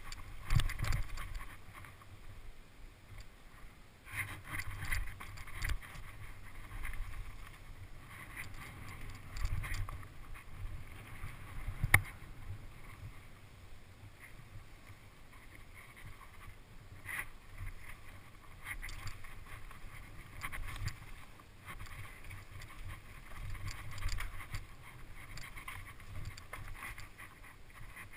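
Mountain bike rolling fast down a rocky dirt trail: uneven tyre rumble and rattling with scattered knocks as it goes over rocks, and wind on the microphone. One sharp knock, the loudest, comes about twelve seconds in.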